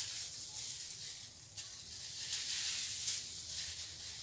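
Thin disposable plastic gloves crinkling and rustling against hair as it is parted and sectioned by hand, a soft crackly hiss that swells and fades.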